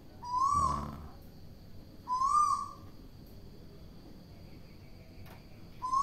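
Female Asian koel held in the hand giving short calls, each a single arched note that rises and falls, twice in the first three seconds and once more near the end.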